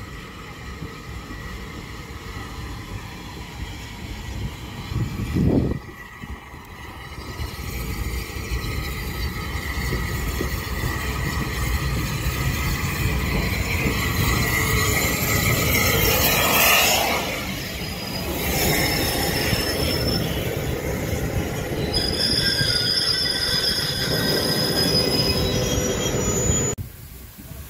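Bulleid light pacific steam locomotive No. 34070 drawing into the station and passing close by with a rush of steam and rail noise, loudest as it goes past. Its coaches follow, with a high, steady squeal of brakes and wheels as the train slows along the platform.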